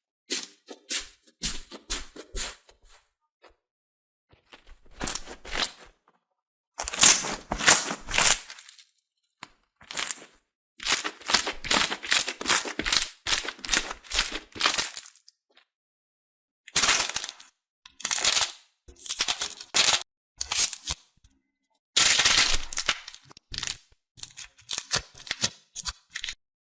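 Slime being squeezed and worked by hand, crackling and popping in bursts of a second or two with brief silent pauses between them.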